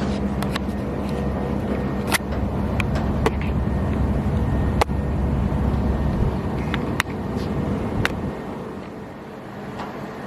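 A steady, low motor hum with a rumble beneath it that fades about eight seconds in. Scattered sharp clicks and knocks come through it, about six in all.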